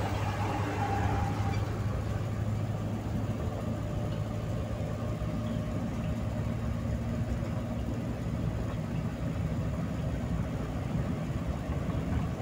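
Steady road noise of a car cruising on a concrete motorway: a low engine hum under the rumble of the tyres.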